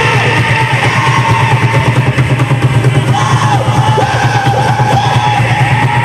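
Loud amplified live music with fast, steady drumming and a wavering melody line above it.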